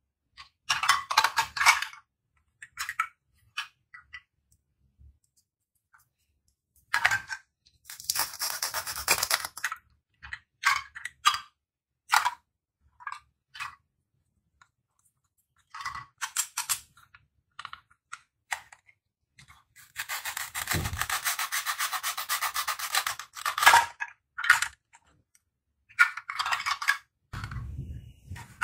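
Velcro-joined plastic toy fruit pieces being handled and cut apart with a plastic toy knife: scattered clicks and taps of hard plastic, with rasping velcro rips, the longest about 8 seconds in and another of about three seconds starting about 20 seconds in.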